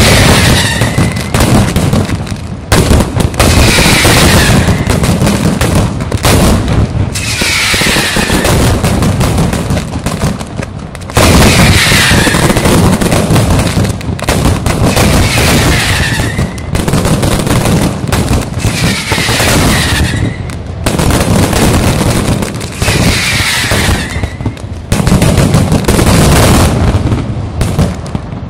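Mascletà firecrackers detonating in a dense, continuous barrage of bangs that comes to sound like machine-gun fire. A short falling whistle recurs about every four seconds, and the barrage jumps suddenly louder a few seconds in and again about eleven seconds in.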